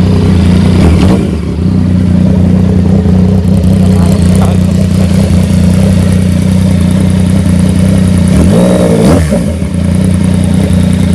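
A 2016 Yamaha MT-09's 850 cc DOHC inline-three engine idling steadily through its stock exhaust. It is blipped briefly twice, a short rev about a second in and a quick rise and fall in revs near the end, before settling back to idle.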